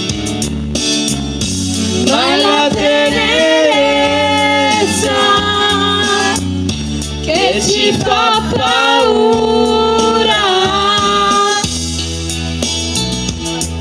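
Young women singing karaoke into microphones over a pop backing track: two long sung phrases with held and gliding notes, a short break between them.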